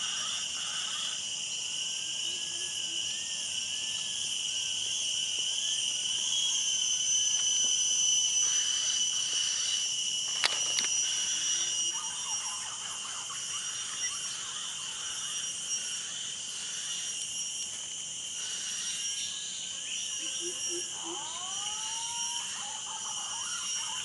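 A steady, high-pitched chorus of insects, probably cicadas, drones throughout, with birds' wavering whistles over it early on and again near the end, where two rising whistles come. A single sharp click sounds about ten seconds in.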